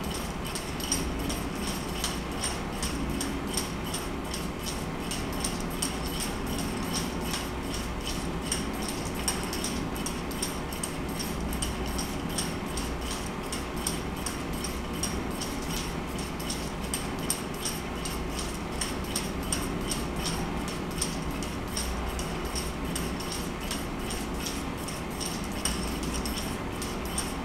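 Kinetic drawing machine running: a swinging marker ticks against the paper in a rapid, even rhythm over a steady mechanical hum.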